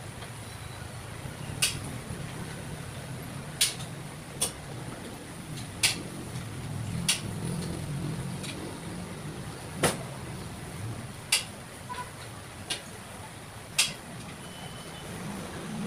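Charcoal grill roasting lechon manok, with sharp pops and crackles at irregular intervals of about one to two seconds, over a low steady rumble.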